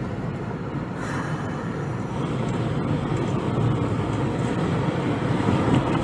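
Engine and road noise of a camper van driving along a city street, heard from inside the cab: a steady low rumble that grows a little louder from about two seconds in.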